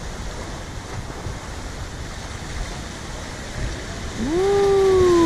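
Surf breaking and washing over the boulders of a rock jetty, a steady rushing noise. Near the end a louder single pitched sound rises quickly and then slowly sinks over about a second.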